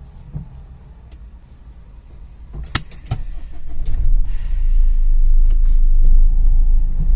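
Car cabin noise while driving on a wet road: a low rumble, broken by two sharp clicks about two and a half and three seconds in. After that, a much louder deep rumble builds from about four seconds in and holds.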